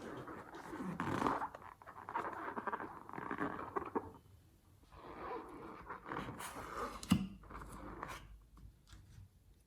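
Slime being squeezed and kneaded by hand, crackling and squelching with small popping clicks as air pockets burst, in two spells with a short pause between.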